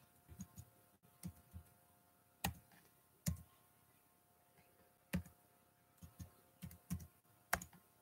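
Computer keyboard keys being pressed: sharp, separate key clicks at an uneven pace, some in quick pairs and clusters with pauses of a second or more between them.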